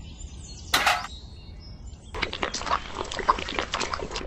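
Wet cement slurry being poured, splattering and plopping in quick irregular glops through the last two seconds. A brief sharp noise comes about a second in.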